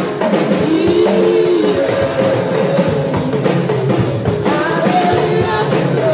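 Live church praise music: singing voices over drums.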